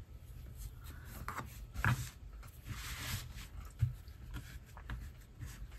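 Hands handling and smoothing a crocheted yarn piece on a wooden tabletop: soft rubbing and brushing, with a few light taps, the clearest about two seconds in.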